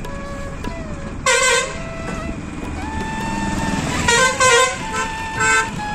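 Vehicle horn honking in short loud blasts over the rumble of a moving bus: once about a second in, a couple of quick blasts around four seconds in, and once more near the end.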